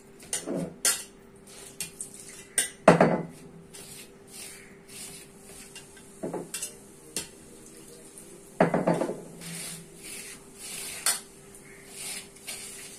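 Flour being mixed by hand in a stainless steel bowl: soft scraping and rubbing, with irregular knocks and clinks against the metal bowl, the loudest about three and about nine seconds in.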